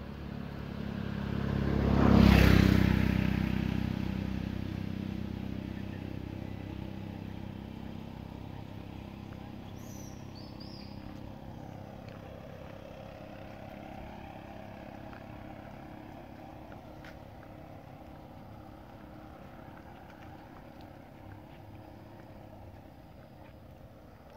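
A motor vehicle passing close by on the road, rising to its loudest about two seconds in, then fading away slowly.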